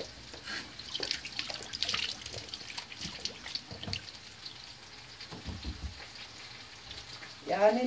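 Peppers frying in oil in a pan: a steady sizzling hiss with spitting crackles, busiest in the first few seconds. A few soft knocks near the end.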